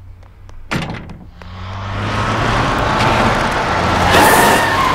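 A car door slams shut about a second in, then a car engine hums and its running noise swells, loudest near the end.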